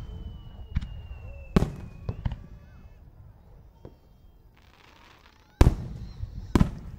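Aerial firework shells bursting, with three loud bangs: one about a second and a half in and two near the end, and smaller pops between. A high whistle slides slowly down in pitch over the first two seconds, and there is a brief hiss just before the second big bang.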